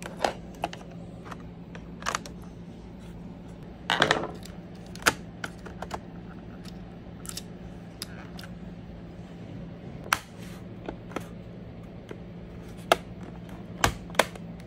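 Irregular sharp clicks and knocks of plastic and metal as an SSD in its metal caddy is seated in a laptop's drive bay and the plastic bottom cover is pressed back into place, over a steady low hum. The loudest knocks come at about four, five, ten, thirteen and fourteen seconds in.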